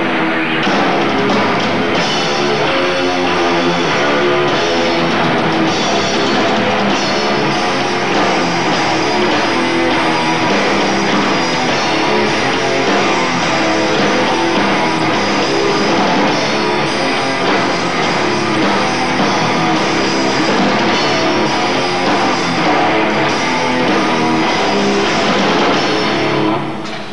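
Death metal band playing live: loud distorted electric guitars over a full drum kit. The sound drops away near the end.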